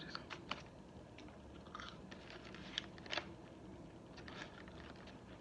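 Close-up mouth sounds of a person chewing a fried chicken sandwich: scattered soft crunches and wet clicks, a couple of louder ones about three seconds in.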